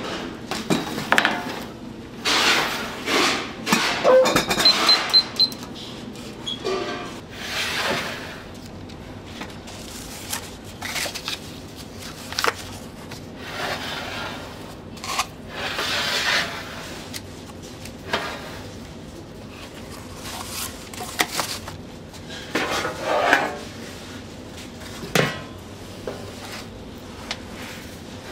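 Metal baking trays and wooden cake frames scraping and knocking as a tray of castella batter is slid into a deck oven and a metal tray is pushed in over it, with four quick high electronic beeps about five seconds in.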